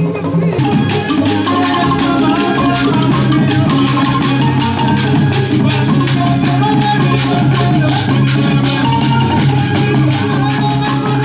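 Music with fast, dense drumming and shaker rattles under a wavering melody line. The music changes abruptly about half a second in.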